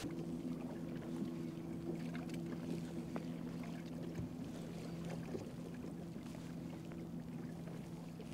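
Boat's electric trolling motor humming steadily at one speed, several pitches held together, over a faint wash of wind and water.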